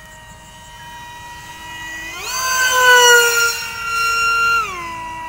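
The 2826 2700 kV brushless motor and 5x5 propeller of a foam RC Sukhoi model jet whining in flight. About two seconds in the pitch jumps up sharply and the sound grows louder. It holds high, then drops back down near the end.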